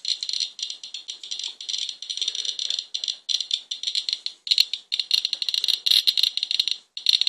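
Radiation Alert Geiger counter clicking fast and irregularly, a dense crackle with a few short gaps. It is counting over 1,100 counts per minute, far above the owner's background radiation level.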